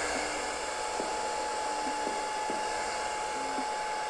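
Hair dryer running steadily on its low setting, an even rush of air with a steady whine, blowing wet acrylic paint across a canvas.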